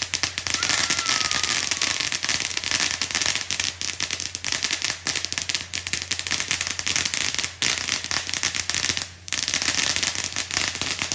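Ground fountain firework throwing sparks with a dense, rapid crackle, dipping briefly twice in the second half.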